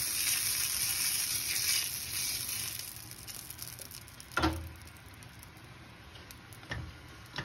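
Oil sizzling on a hot sizzler platter as it is brushed across the surface with a pastry brush: a steady hiss that fades away over the first few seconds as the oil spreads thin. A single knock about four and a half seconds in, with a couple of faint clicks near the end.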